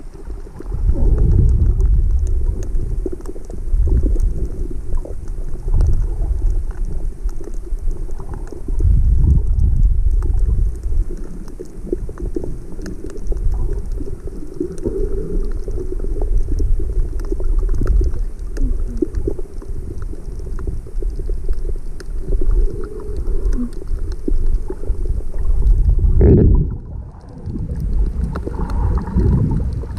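Water rushing and sloshing around an underwater camera: a low rumble that swells and fades every couple of seconds as the camera moves through the water, with faint scattered clicks throughout.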